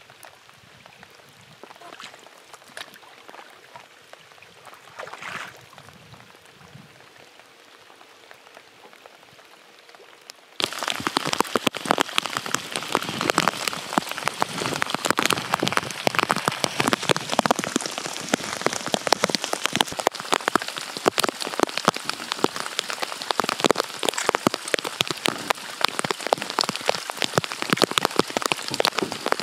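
Heavy rain falling on a lake's surface, a dense, steady patter of drops. It sets in suddenly about ten seconds in, after a quiet stretch.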